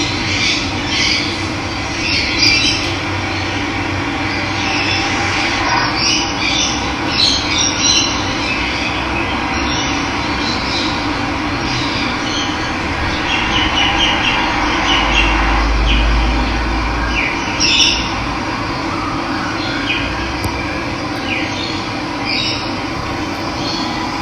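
Steady rush of running water with birds calling over it in many short, scattered calls. A low rumble briefly swells about two-thirds of the way through.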